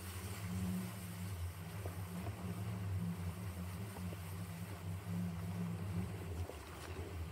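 Wind buffeting the microphone in an uneven low rumble, over the hiss of water rushing under a kiteboard planing across a lagoon, with a few faint ticks of spray.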